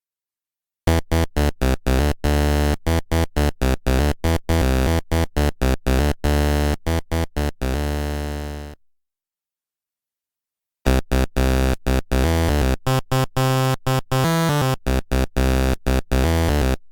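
Electronic keyboard music: two phrases of quick, evenly spaced notes, the first about eight seconds long and the second about six, with a silence of about two seconds between them.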